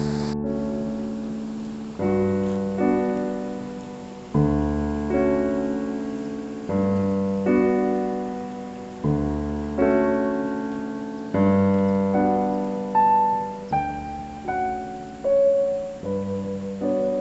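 Background piano music: slow chords struck about every two seconds, each ringing out and fading, with a lighter melody line above.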